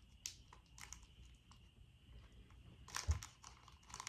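Snack packaging being handled, with faint irregular crinkling and clicking and a louder rustle and bump about three seconds in.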